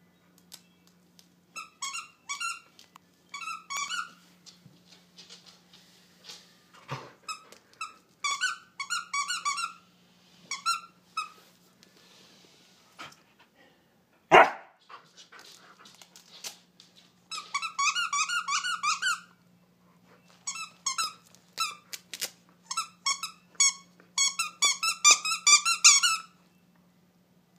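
A Karelian Bear Dog biting and chewing a squeaky plush frog toy, the squeaker going off in quick runs of squeaks with pauses between. One short, loud bark about halfway through.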